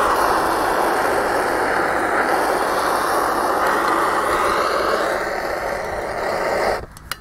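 Handheld gas-cartridge blowtorch burning with a steady hiss as its flame heats a stuck cylinder on an air-cooled VW Beetle engine, so that the cylinder can be freed and drawn off. The flame cuts off suddenly near the end.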